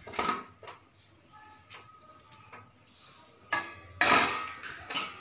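Metal utensils clinking and knocking against an aluminium kadai and a steel bowl as pieces of fried bhola fish are lifted into the curry gravy. It is a string of separate clinks, the loudest about four seconds in.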